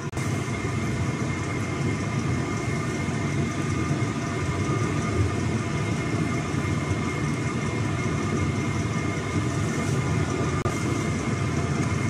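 A steady mechanical hum with an airy rush and a faint, steady high-pitched tone, unchanging throughout.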